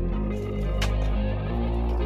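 Background music: a soft instrumental track with a deep sustained bass and a light beat every second or so.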